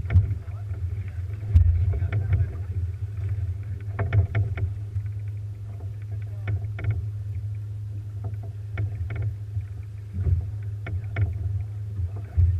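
A boat's engine running with a steady low hum, with scattered knocks and clicks on the boat.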